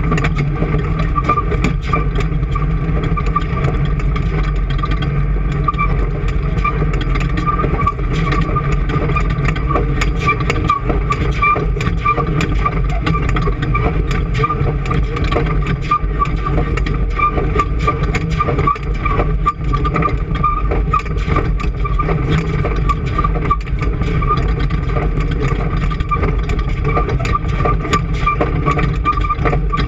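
An engine running steadily without a break, at an even level.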